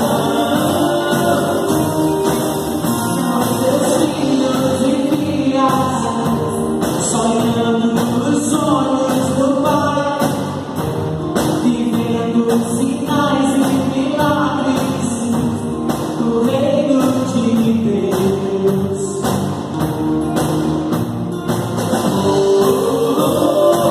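Gospel worship band rehearsing: singers carry a melody over a full band, with drums keeping a steady beat.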